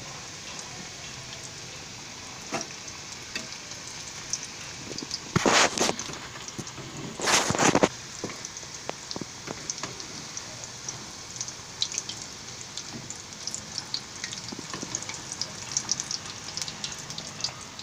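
Onion samosas deep-frying in a pan of hot oil: a steady sizzle with scattered crackling pops, and two louder bursts of about a second each, around five and seven seconds in.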